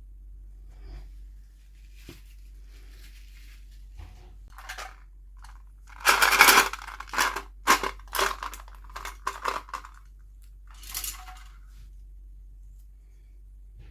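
Toy packaging being handled and opened: rustling, then a run of loud, sharp crackles and clicks in the middle, and a short rustle near the end.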